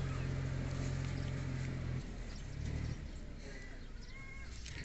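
Low, steady engine hum that drops away about two seconds in, with two short high chirps near the end.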